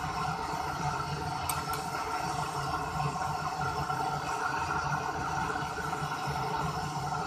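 Jeweller's gas torch burning steadily, its flame heating a red-hot lump of metal in a clay crucible.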